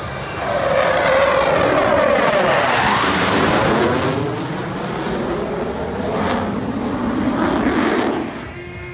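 Blue Angels F/A-18 Hornet jet flying past, its loud engine roar with sweeping pitch. The roar swells about half a second in, eases after about four seconds, swells again near the end and then cuts off abruptly.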